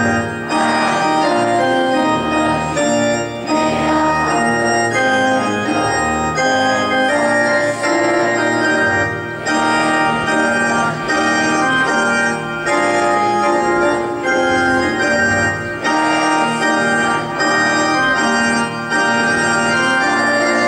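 Organ music: held chords played in phrases, with brief breaks every second or two.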